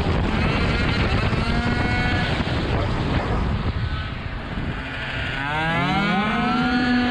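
Tuned two-stroke racing scooter engine heard onboard. It falls away off the throttle while braking into a tight corner and is quietest about four seconds in. About five seconds in it revs up with a steeply rising pitch as the rider gets back on the throttle, then holds a steady high note.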